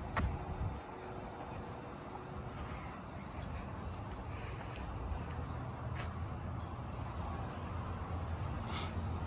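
Insects chirping in a steady, pulsing high note, over a low rumble, with a few faint clicks.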